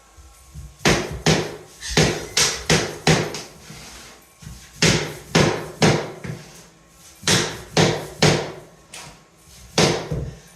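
Hammer knocking a luxury vinyl floor plank into place: about a dozen sharp knocks in clusters of two to four, with short pauses between clusters.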